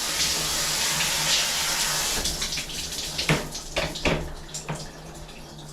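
Shower water running in a steady hiss that dies away over the second half, while several sharp knocks sound.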